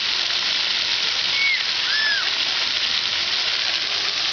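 Splash-pad fountain jets spraying up and falling on wet pavement: a steady hiss of water. Two short, faint high chirps come about a second and a half and two seconds in.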